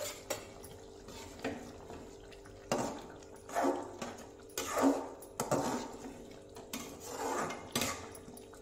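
A metal spoon stirring and scraping a thick cauliflower-and-pea curry in an aluminium kadhai. The strokes come roughly one a second, with light clinks of the spoon against the pan.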